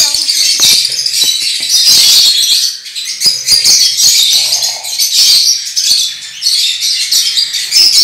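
Aviary flock of lovebirds chattering and chirping continuously, many high calls overlapping, with scattered knocks from handling close to the microphone.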